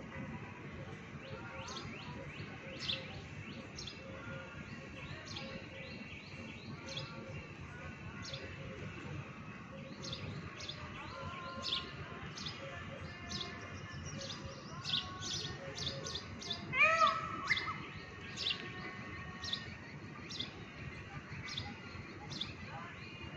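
Birds chirping outdoors, with many short high-pitched chirps repeating throughout. About 17 seconds in comes one louder, lower call with several rising notes.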